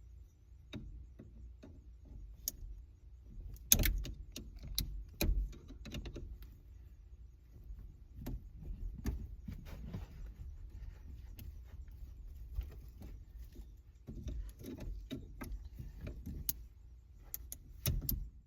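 Irregular metallic clicks, knocks and clatter from handling tools and small parts, with a sharper knock about four seconds in and a quick cluster of knocks near the end, over a low steady rumble.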